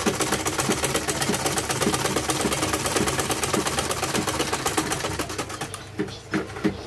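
Flatbed sewing machine stitching a seam at a steady run, a rapid even rattle of needle strokes. It stops about six seconds in, followed by a few separate clicks as the work is pulled out from under the foot.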